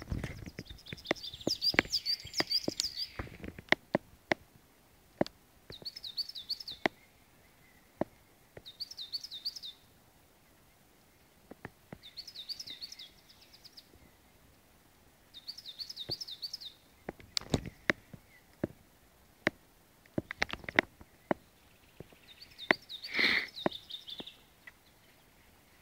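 A songbird singing the same short phrase of rapid high notes over and over, about every three to four seconds. Scattered sharp clicks and taps come between the phrases, some louder than the song.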